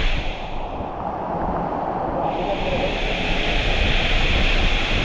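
Rushing water of a rocky waterfall stream, a steady loud hiss. From about half a second in until just past two seconds the sound turns muffled and dull, then clears again.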